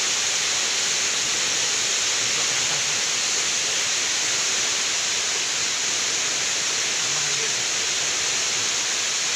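Waterfall: a steady rush of falling water, with a faint voice about seven seconds in.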